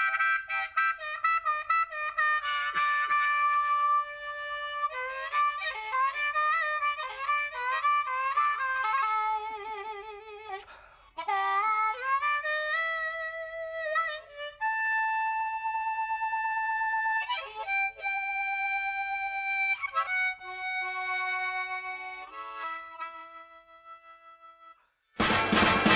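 Background music: a slow solo melody on a reedy wind instrument, with long held notes that bend and waver and short breaks between phrases. Near the end it stops, and louder, fuller music comes in.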